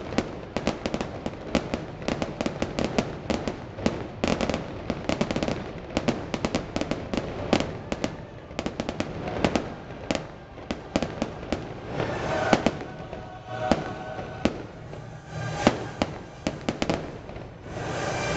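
Aerial fireworks going off in a rapid, continuous run of sharp bangs and crackling pops, several a second. Music plays behind them, heard more plainly in the second half.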